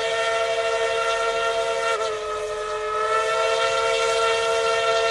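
Steam whistle of 1917 Baldwin steam locomotive No. 12 blowing one long, steady blast, with a brief dip in pitch about two seconds in.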